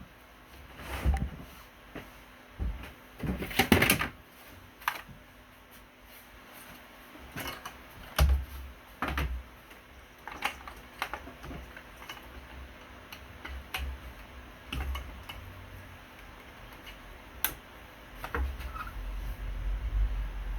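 Irregular clicks, taps and rustles of hands working with tools and materials, with a few louder knocks in the first few seconds.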